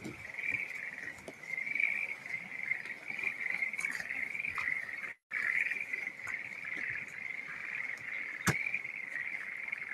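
A steady, high-pitched chorus of frogs. The audio cuts out for a moment about five seconds in, and a single sharp click comes about eight and a half seconds in.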